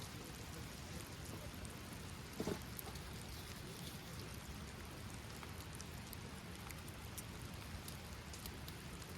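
Steady rain falling, with many small drops ticking on a surface, and one short knock about two and a half seconds in.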